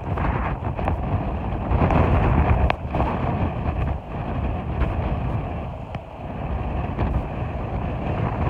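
Strong gusty wind buffeting the microphone: a loud rushing noise, heaviest in the low end, that swells and eases with each gust.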